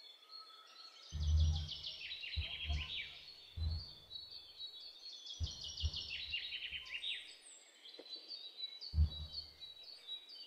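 Songbirds singing: repeated phrases of quick notes that slide downward in pitch, twice forming long falling runs. Soft low thumps, the loudest about a second in and near the end, come from dough being pressed and worked on a wooden board.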